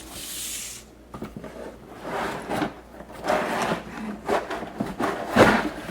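Cardboard box and plastic toy track set being handled: sliding, rubbing and scraping, with a knock about five and a half seconds in.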